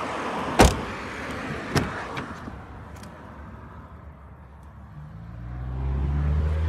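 VW Taigo's tailgate and rear door being handled: a sharp clunk about half a second in and another just under two seconds in. Near the end a low steady hum swells up.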